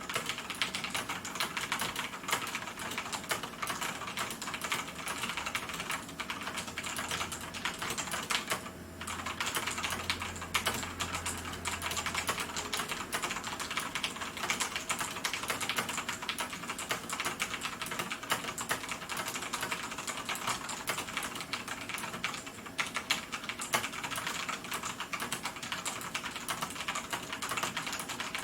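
Continuous typing on an ikbc Table E401 tenkeyless mechanical keyboard with tactile Cherry MX Brown switches: a dense, steady run of key strokes, with a short pause about nine seconds in.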